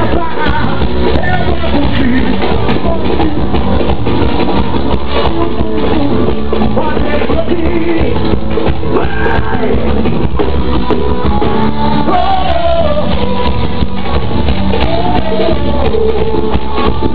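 Live band music played loudly through a stage sound system, with a singer's voice over a steady beat; the recording is crowded and cut off in the highs.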